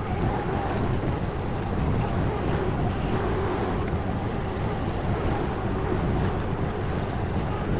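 Derette DRT450 mini skid steer's Honda gasoline engine running steadily at working throttle as the machine pushes dirt.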